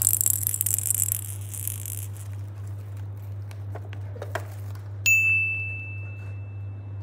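A plastic cage-ball rattle toy shaken briefly, a fine high rattling that stops after about a second, followed by a few light plastic clicks. About five seconds in, a single bright ding rings out and fades over a couple of seconds, like a chime sound effect.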